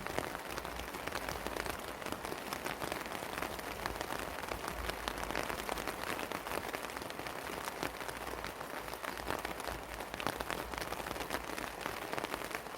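Steady rain, with a constant hiss and many separate drops ticking on nearby surfaces.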